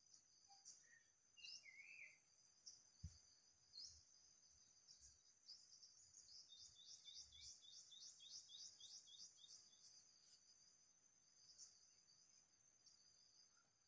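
Faint chorus of crickets and other insects trilling steadily at a high pitch, with repeated rising chirps and a quick run of about four chirps a second in the middle. A bird gives a few short notes about a second in, and there are a few soft low thumps.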